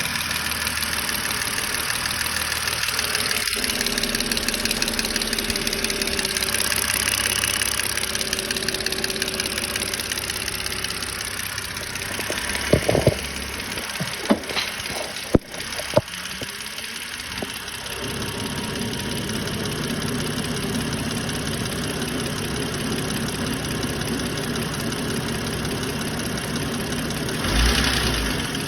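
BMW 530i engine running at idle with a fast, hard ticking, with a few sharp knocks about halfway through.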